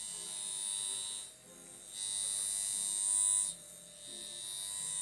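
Darsonval high-frequency comb buzzing with a high-pitched electrical squeal from the discharge through its glass comb electrode. The squeal comes in three spells of one to two seconds, with short quiet gaps as the electrode moves against the scalp, and is loudest in the middle spell.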